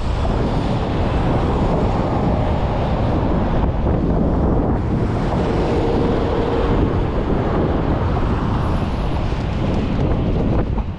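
Wind buffeting the microphone over a steady hum of road traffic, with a faint steady tone for a second or so in the middle.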